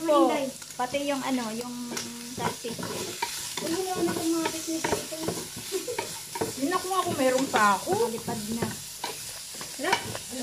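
Food sizzling in hot oil in a pan as it is stirred, with repeated short clicks of a utensil against the pan.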